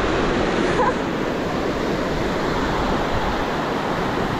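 Steady, loud rush of fast-flowing river water.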